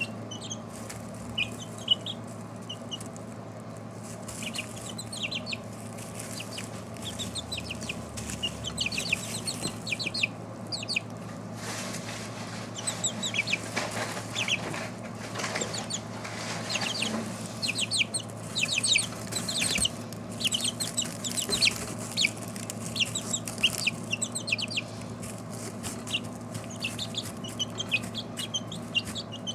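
A group of four-week-old chickens peeping in many short, high-pitched calls, busier in the second half, over a steady low hum.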